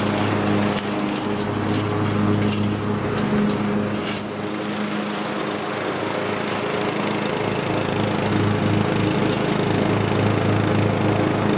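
Cub Cadet XT1 Enduro riding mower's Briggs & Stratton engine running steadily under load, with the 42-inch deck's blades engaged and cutting grass.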